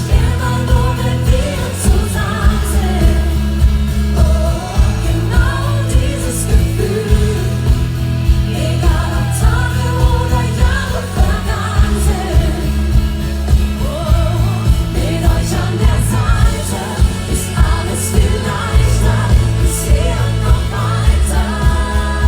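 Live pop band music with a steady beat and bass, and a voice singing a melody over it.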